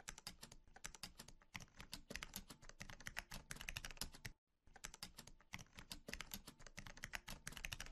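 Faint, rapid computer-keyboard typing, a quick run of key clicks with one brief pause about halfway through, keeping pace with the on-screen text being typed out.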